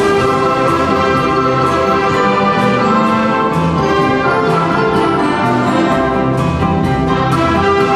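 Youth orchestra playing together: bowed strings and sustained brass, with repeated percussion strikes.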